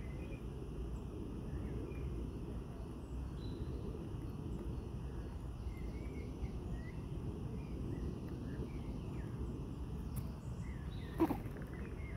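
Outdoor background with a steady low rumble and scattered faint, short bird chirps. A single sharp knock near the end is the loudest sound.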